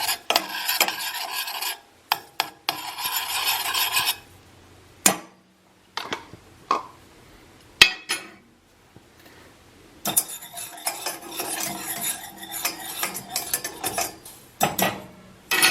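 A utensil stirring and scraping around a pot on the stove, melting butter into milk. It comes in bouts with quiet pauses between them, and a few sharp clinks against the pot.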